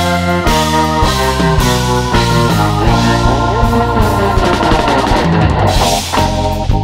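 Rock music with a drum kit beating steadily under held, pitched chords.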